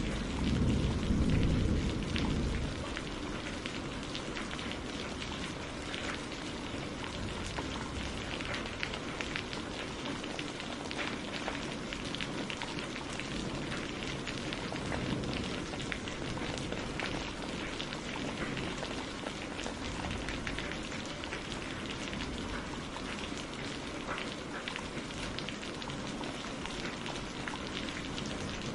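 Steady rain falling, a dense patter of small drop ticks over an even hiss. A low thunder rumble dies away about two seconds in.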